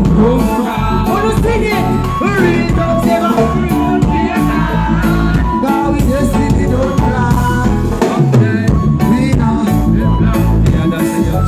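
Live dancehall music: a singer's voice over a loud, bass-heavy beat with drums.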